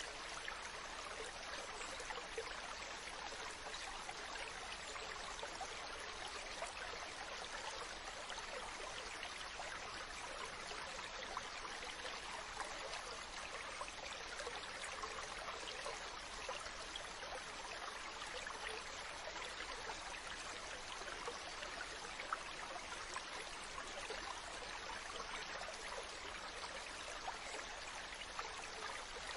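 Mountain stream: water running and splashing over rocks in a steady, even rush with fine bubbling detail.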